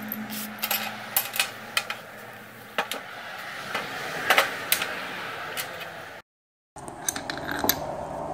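Scattered clicks and light knocks of metal and rubber suspension parts being handled on a workbench: washers, spacers, a nut and bushings from a shock absorber's top mount. The sound cuts out briefly about six seconds in.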